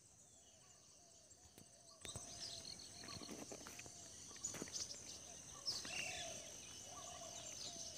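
Faint countryside ambience: a steady high-pitched insect drone, like crickets or cicadas, with birds chirping and calling now and then. It gets a little louder about two seconds in.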